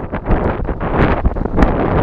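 Gusty wind buffeting an outdoor microphone: a loud, uneven rumbling rush that swells and dips, with many small sharp ticks scattered through it.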